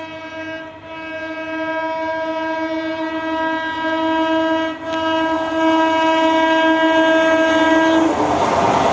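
An Indian Railways train horn sounds one long, steady blast, with a brief break about five seconds in, as an express hauled by an electric locomotive approaches on the adjacent track. About eight seconds in the horn stops, and the rushing rumble of the locomotive passing close by takes over.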